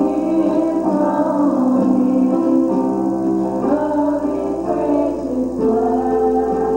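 Gospel song sung live with instrumental accompaniment, voices holding long notes over the music.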